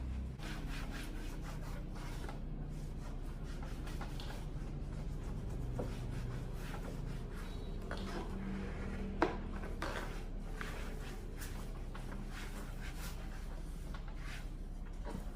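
Rubbing and scraping of hand work on a small portable Bluetooth speaker as it is taken apart, with scattered light clicks and one sharper click about nine seconds in, over a steady low hum.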